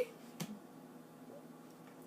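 Quiet room tone with one short soft click about half a second in.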